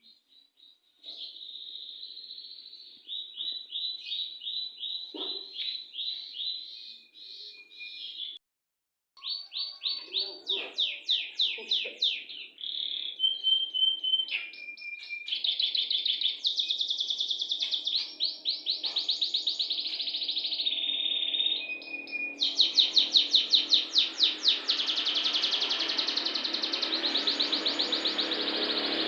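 Domestic canary singing long rolling trills: runs of fast repeated notes and held buzzy rolls, broken by a short pause about eight seconds in. Near the end a steady rushing noise swells up underneath the song.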